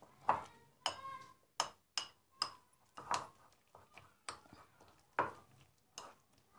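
A spoon stirring shredded cabbage coleslaw in a glass bowl, with irregular clinks of the spoon against the glass, a few of which ring briefly.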